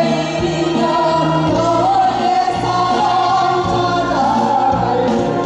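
Two women singing a Korean folk song (minyo) into microphones, with long held notes that slide between pitches, over an amplified backing track with a bass line.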